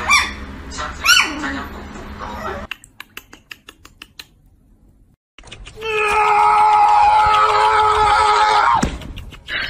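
A small poodle puppy gives a short, high whine that rises and falls, about a second in. Then come a few faint light clicks. Past the middle, a louder, long, steady high-pitched cry or squeal is held for about three seconds.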